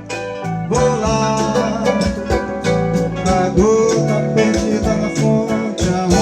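Band music with guitar over a steady drum beat, swelling up in the first second.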